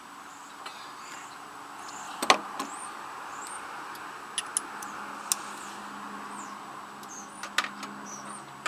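Sharp metallic clinks of a socket and ratchet being handled while unbolting a riding mower's parts, the loudest about two seconds in and a few more later. Under them runs a steady hum of insects, with short bird chirps.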